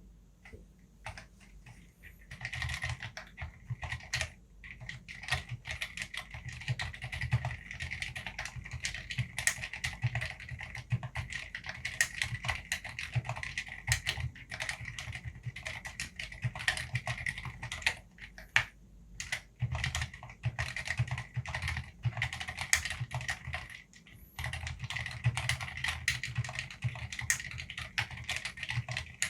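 Typing on a COX Black Pearl CNC aluminium mechanical keyboard with Cherry MX Silent Red linear switches lubed with Super Lube spray and PBT keycaps. A few scattered keystrokes, then fast, continuous typing broken by a few brief pauses.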